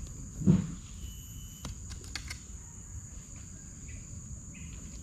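Insects trilling steadily at a high pitch over a low background rumble, with one dull low thump about half a second in and a few faint clicks after it.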